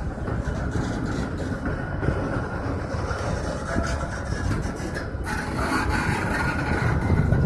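Train running on the rails: a steady rumble with scattered short clicks, its sound changing about five seconds in.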